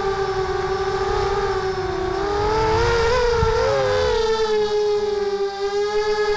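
Mini quadcopter's Sunnysky brushless motors and propellers whining steadily, heard from the onboard camera. The pitch wavers and splits into several close tones about two to four seconds in as the throttle changes, over a low wind rumble on the microphone.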